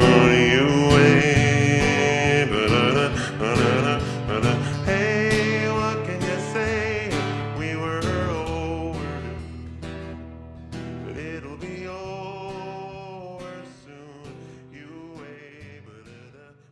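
Song outro: slowed, reverb-heavy acoustic guitar with a lingering vocal, fading out gradually to near silence.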